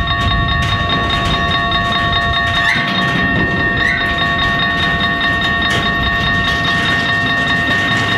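Tank wagons of a freight train rolling through a level crossing, their wheels rumbling with a few clicks over the rail joints. At the same time the crossing's warning bells ring steadily.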